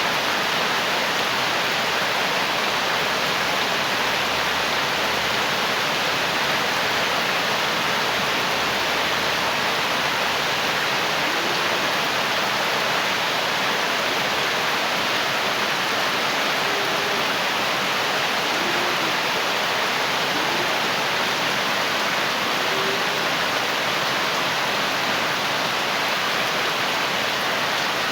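Rain falling steadily as an even, unbroken hiss of downpour, with a few faint short tones in the middle.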